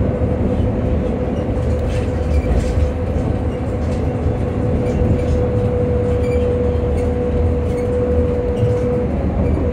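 Electric bus traction motor whining at one steady pitch while the bus cruises, over low road and body rumble heard from inside the cabin. The whine drops away about nine seconds in.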